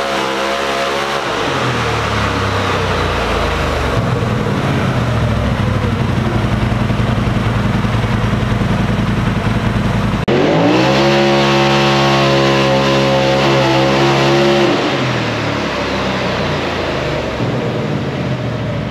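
Turbocharged Polaris RZR Pro XP engine running wide-open dyno pulls on its stock tune, as baseline runs. Two pulls are cut together: the engine speed rises, holds high for several seconds and drops off, with a sudden cut to the second pull about ten seconds in.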